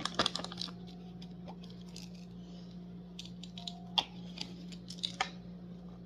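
Scattered light clicks and taps of hands handling pills and their packaging while preparing a dog's pain medication, with a few sharper clicks about four and five seconds in. A steady low hum runs underneath.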